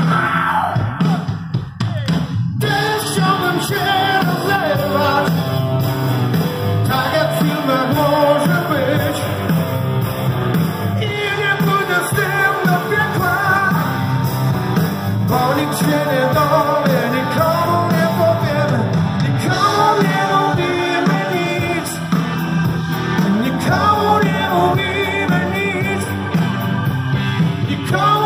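Live rock band playing with electric guitar and a male singer, heard from the crowd as one continuous loud song.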